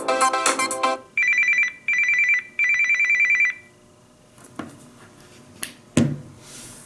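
Samsung Galaxy S21 ringtone in the style of an old telephone bell: three bursts of rapid electronic ringing, the last the longest, after the end of a melodic ringtone about a second in. A few clicks and a loud thump follow near the end.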